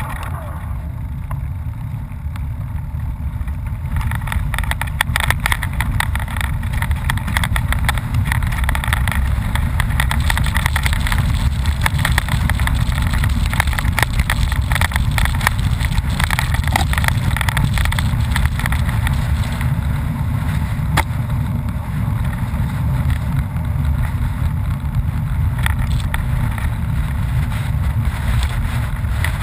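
Wind rumbling on an action camera's microphone, with rattles and knocks as it is ridden over a rough, stony dirt trail. It gets louder and busier about four seconds in.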